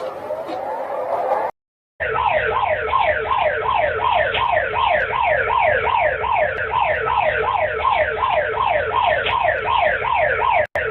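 Electronic emergency alert tones: one alert tone ends, and after a half-second gap a new one starts, a fast repeating falling sweep about three times a second, with a brief break near the end.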